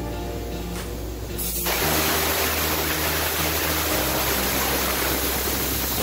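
Background music with a steady bass line; about a second and a half in, a loud, steady hiss sets in abruptly and covers the rest of the sound.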